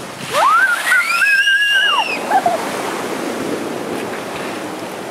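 Rough typhoon surf washing and breaking on the shore with the wind blowing. In the first two seconds a high whistling tone rises, holds for about a second and falls away.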